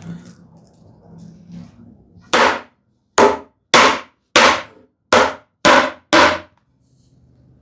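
Seven hammer blows on a scrap wood block, about two seconds in and roughly half a second to a second apart, seating the hand-cut dovetail joints of a cabinet case during glue-up.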